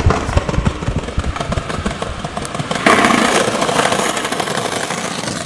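Street noise with scattered clicks. About three seconds in, a sudden loud, rough rolling noise starts and slowly fades: skateboard wheels rolling over concrete pavement.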